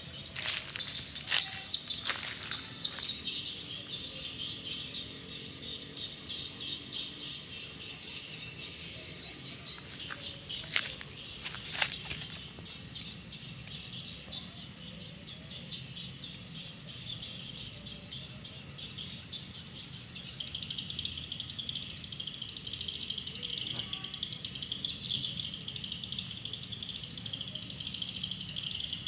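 Dense, continuous high-pitched twittering of a flock of swiftlets. The chirping drops somewhat lower in pitch after about twenty seconds.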